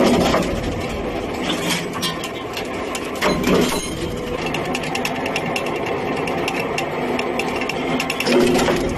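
CNC busbar cutting and punching machine running, a steady mechanical clatter of rapid small clicks with three heavier strokes: one at the start, one about three and a half seconds in, and one near the end.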